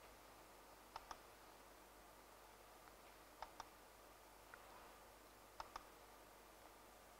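Three double-clicks of a laptop's pointer button, about two seconds apart, over near-silent room tone.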